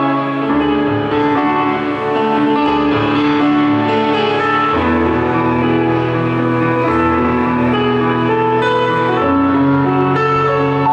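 Live stage keyboards playing slow held chords over a bass note that moves every second or two, with no drums.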